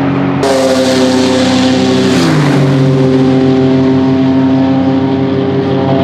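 GT race car engines, the Aston Martin Vantage GT3's Mercedes-AMG twin-turbo V8 among them, running at steady revs as the cars drive off. The pitch steps down about two seconds in, then holds steady.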